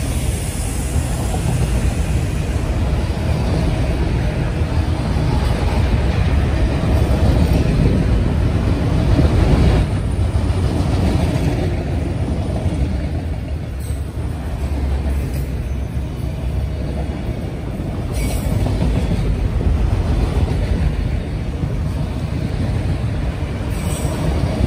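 Freight train of autorack cars rolling past: a steady, heavy noise of steel wheels on rail, with a few faint short high ticks.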